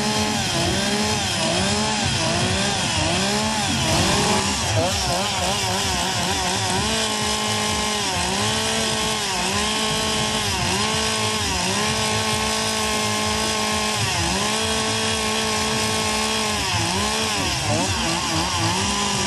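Two-stroke chainsaw running at high revs while carving a wooden figure. The engine pitch dips and recovers again and again as the chain bites into the wood, in quick short cuts at first and then in longer cuts about a second apart.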